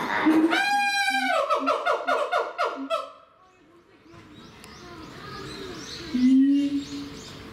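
Siamang great call: one long high note, then a fast run of loud repeated whooping notes, with low notes between them, ending about three seconds in. A single loud low note comes near the end. The call is a territorial call.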